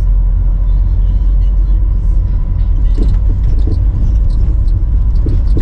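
A car driving, with a steady low road-and-engine rumble and a couple of light knocks about halfway through and near the end.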